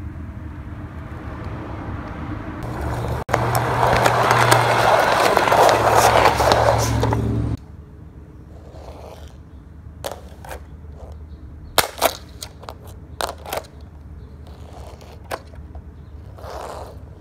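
Toy car rolling across a wooden floor, its plastic wheels and small motor making a loud, even whirring noise with a low hum under it that stops suddenly about halfway through. After that come scattered sharp clicks and taps of plastic toys on the floor.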